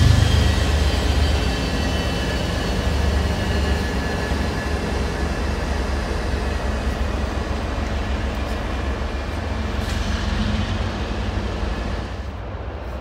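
MBTA commuter rail diesel locomotive (an MPI HSP46) running as its train pulls away, the deep engine rumble loudest at first and easing off. Faint high whining tones ride over it for the first few seconds.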